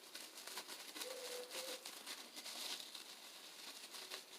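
Faint crinkling and rustling of miniature packaging being handled, made of many small irregular clicks.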